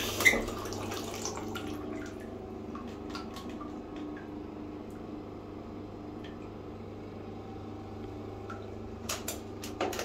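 Bathroom wall tap shut off with a sharp click right at the start, then water dripping from the faucet spout into the filled plastic baby bath, scattered drips throughout, with a few louder clicks near the end.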